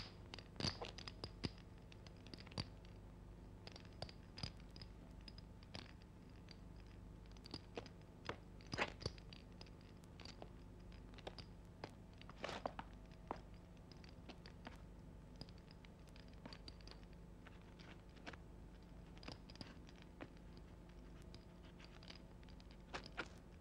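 Faint, scattered knocks and scrapes of boys climbing a wooden pole ladder onto a roof, over a steady low hum.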